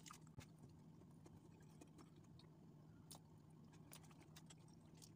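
Near silence: a faint steady low hum, with a few soft clicks.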